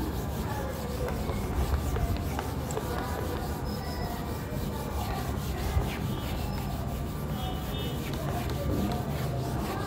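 Whiteboard duster rubbing across a whiteboard, wiping off marker writing.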